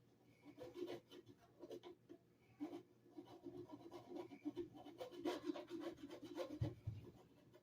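Quiet, irregular rubbing and scratching with small clicks, as hands work at the plastic parts of a clogged Shark Navigator vacuum to clear out debris, with a soft thump about six and a half seconds in.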